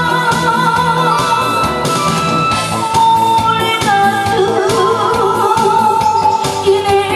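A woman singing into a microphone over amplified instrumental accompaniment with a steady beat, holding long notes with vibrato.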